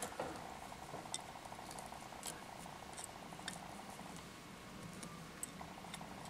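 Faint handling sounds of diamond braid tinsel being wrapped around a plastic tube fly: a few light, scattered ticks and rustles from fingers and bobbin, over a faint steady hum.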